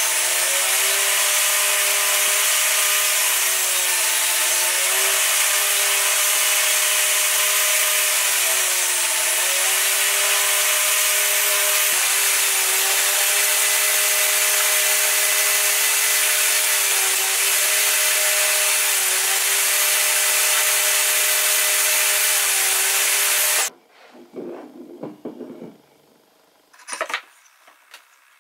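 Table saw running with its blade cutting slots in wood for a joint. The motor's whine dips briefly in pitch several times as passes load it. Near the end it gives way abruptly to quiet, with a few light wooden knocks as the cut pieces are fitted together.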